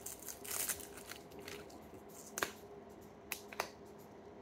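Small plastic slime tub being handled, fingers picking at its lid: a short scratchy rustle, then a few sharp plastic clicks.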